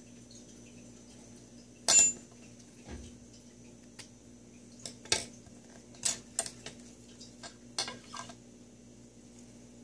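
Metal clinks and sharp snips: scissors cutting a small piece of fine metal mesh held against a steel ruler. There is one loud clack about two seconds in, then a run of about ten quicker clicks over the next four seconds.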